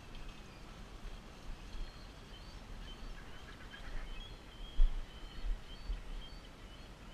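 Harbour ambience outdoors: uneven low wind rumble on the microphone, with a sharper gust about five seconds in, and faint short high chirps scattered through the middle.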